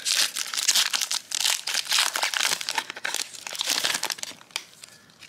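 Foil wrapper of a Pokémon trading card booster pack being torn open and crinkled by hand: a dense, crackling rustle that dies down near the end.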